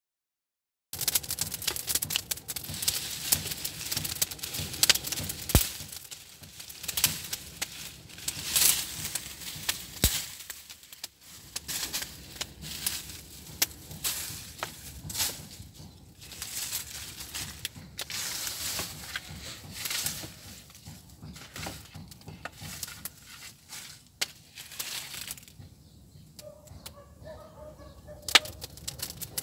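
Wood fire burning in a mud-and-straw bread oven, with dense, irregular crackling and sharp pops. A few short pitched calls come near the end.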